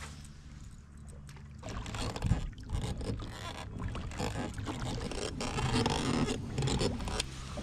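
A fishing kayak on open water: irregular splashing and small knocks against the plastic hull, over a steady low hum. It is quieter for the first second and a half, then busier, with the loudest knock a little after two seconds in.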